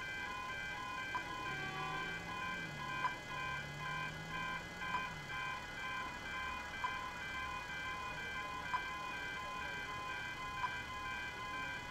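Barker Technic Type 2 electronic level-crossing bells ringing continuously, a fast repeating electronic tone sounding while the crossing is active and a train is due, with a sharp click about every two seconds.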